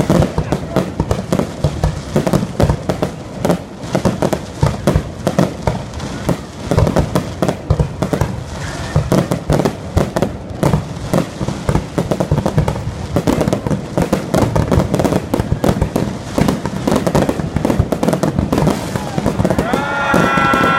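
Fireworks display: a dense, irregular run of bangs and crackle from aerial shells launching and bursting. Near the end a wavering pitched sound joins in over the bangs.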